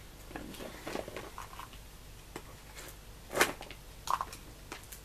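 Handling noises from a plastic Easter-egg container and its plastic eggs: scattered light clicks, knocks and rustles, with one louder knock about three and a half seconds in.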